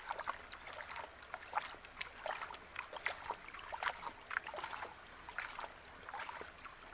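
Water sloshing and splashing in a gold pan as wet sand is swirled and worked by hand, washing the sand away from the fine gold. It comes as many small, irregular splashes.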